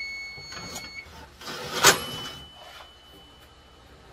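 Electronic beep from the oven's cooking timer: one steady tone lasting about a second. About two seconds in comes a single sharp metallic clatter, the loudest sound here, followed by a faint steady high tone.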